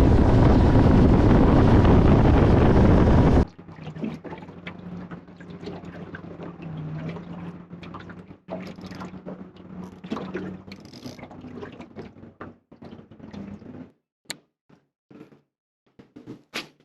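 Small fishing boat on the water: a loud rush of wind and water noise that cuts off suddenly after about three and a half seconds. Then comes a quieter stretch of water sounds with a low steady hum and light knocks, ending in a few sharp clicks.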